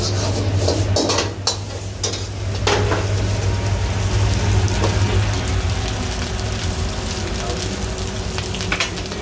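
Egg noodles and shredded vegetables sizzling as they are stir-fried in a hot wok, turned with a steel ladle, with a few clanks of the ladle against the wok and a steady low hum underneath.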